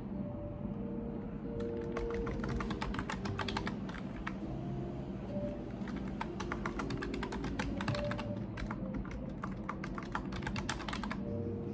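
Typing on a computer keyboard: a run of quick key clicks starting about two seconds in and stopping about two seconds later, then a longer run from about five and a half seconds until shortly before the end.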